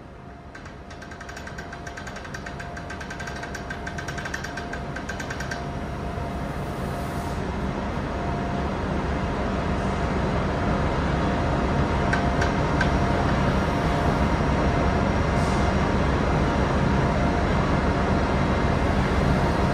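Grain pouring out of a Timpte hopper-bottom trailer's opened gate into the unloading pit: a steady rushing hiss that grows gradually louder as the gate is cranked open, over a steady low hum of machinery.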